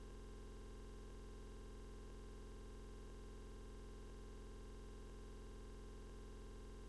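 Faint steady hum with a buzz of many overtones, unchanging throughout: an electrical hum or noise floor under the closing logo card.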